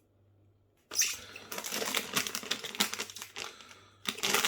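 Packaging being handled, crinkling and rustling with many small crackles. It starts about a second in, eases off, and picks up again near the end.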